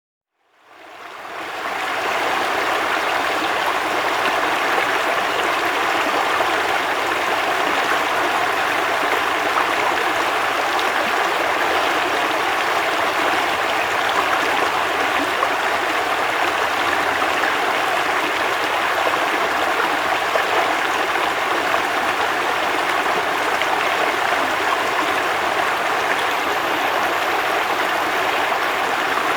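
A river's flowing water, a steady rushing and babbling that fades in over the first couple of seconds and then holds even.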